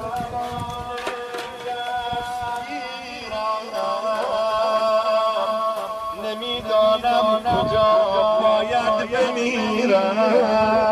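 Persian-style chanting: a solo voice sings a slow melody with long, wavering held notes over a steady low tone.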